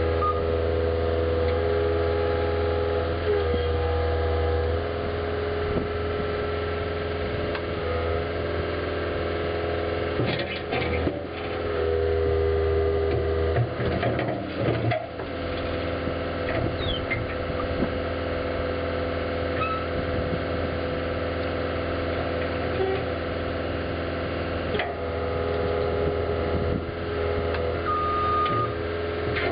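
Caterpillar 289C2 skid steer loader's diesel engine running steadily, its note shifting a few times as the machine works. A short back-up alarm beep sounds near the end.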